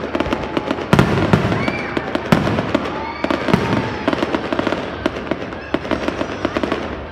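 Fireworks display: a dense run of crackling pops and bangs, with two loud booms about one and two and a half seconds in.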